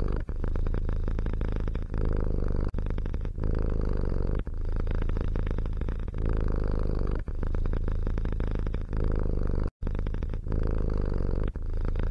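Domestic cat purring close to the microphone: a loud, continuous low rumble of fast pulses that dips briefly every second or so at each change of breath. It drops out completely for an instant about two-thirds of the way through.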